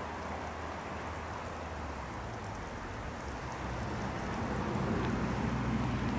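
Steady hissing outdoor background noise, with a low rumble growing louder from about halfway through: an approaching train, not yet in view.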